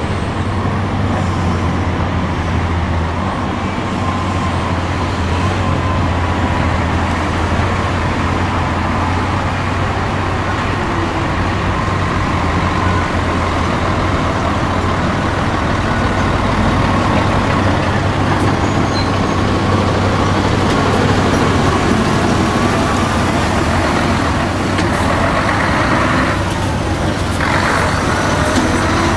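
Mercedes-Benz Actros dump truck's diesel engine running as the truck drives across loose dirt, growing louder as it passes close near the end.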